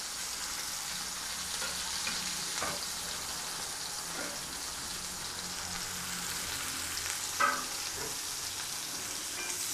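Sliced onions sizzling steadily in hot oil in a wide metal pan, just added and starting to fry, with one brief louder sound about seven seconds in.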